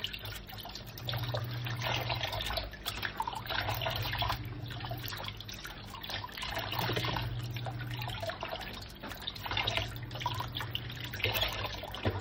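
Tap water running into a stainless steel sink, with irregular splashing as gloved hands rinse and scrub under the stream.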